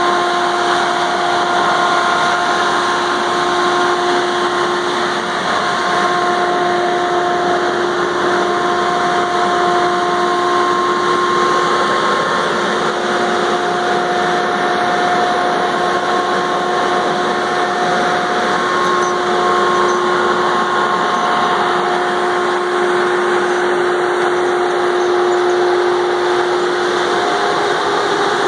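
Valmet 603S feller buncher's diesel engine running steadily under load as the machine drives and turns on gravel, with a constant whine over it.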